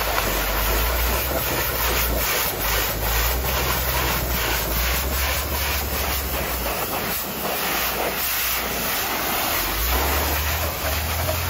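High-pressure water jet from a pressure-washer wand hissing and spattering steadily against the mud-caked spare wheel and rear body of a Jeep. A low machine hum runs underneath, dropping away for a few seconds past the middle before coming back.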